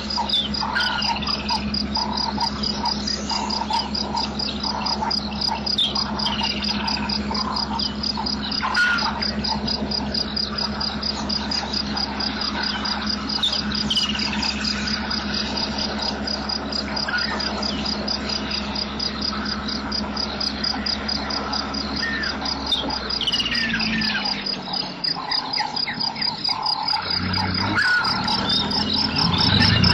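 Outdoor natural ambience: a steady, rapidly pulsing insect trill, with birds giving short down-slurred whistled calls every few seconds. A low steady hum runs underneath and fades out about three-quarters of the way through.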